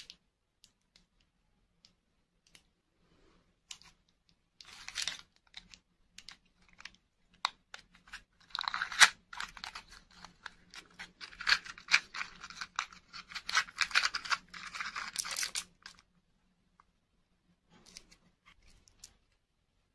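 A small cardboard box being opened by hand: the flap scraping and paper crinkling make a dense run of crackles from about eight to sixteen seconds in, with a few scattered rustles and clicks before and after.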